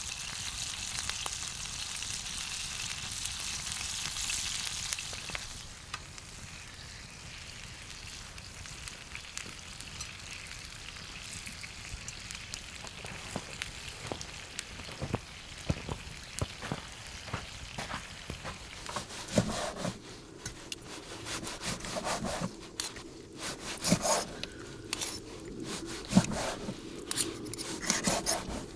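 Food sizzling in a hot pan, loudest for the first five seconds, then quieter, with clinks, scrapes and knocks of utensils stirring and turning the food that come thicker in the second half.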